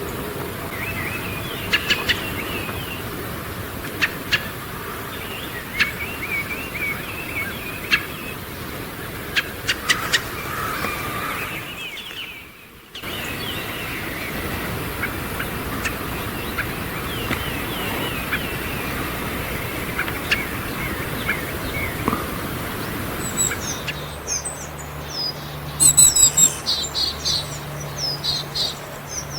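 Wild songbirds calling: short chirps and twittering with sharp clicks, broken by a brief gap about twelve seconds in. From about twenty-four seconds, different high, rapid calls take over.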